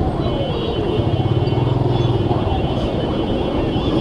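Motorcycle engine running steadily among the noise of surrounding road traffic.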